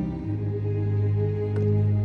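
Calm ambient background music with long, held low notes that shift to a new chord about a quarter second in.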